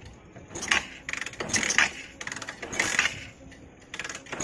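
Honda Shine 125 single-cylinder engine being kicked over again and again without firing: a series of short clattering, ratcheting bursts about a second apart. The bike will not start, which the mechanic puts down to petrol that got into the engine and thinned the engine oil.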